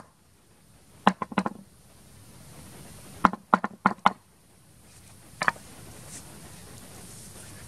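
Wooden pestle pounding spice paste in a mortar: dull knocks in two quick runs of about five, a second and three seconds in, with single knocks at the start and about five and a half seconds in. A faint steady background hiss follows.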